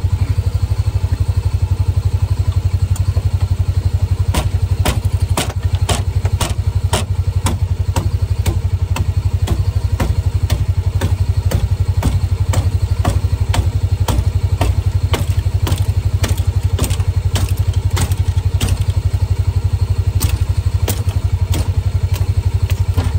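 Side-by-side UTV engine idling steadily, with a run of sharp knocks from about four seconds in, roughly one or two a second: hammering with the back of a hatchet.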